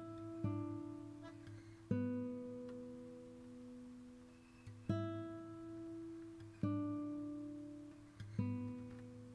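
Acoustic guitar playing slow single strummed chords, five in all, each left to ring and fade before the next.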